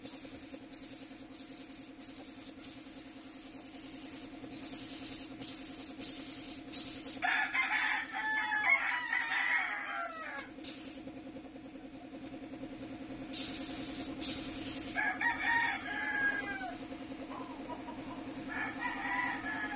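A paint spray gun hissing in short trigger pulls through most of the first ten seconds and again around two-thirds in, over a steady low hum. A rooster crows loudly about seven seconds in, and again twice near the end.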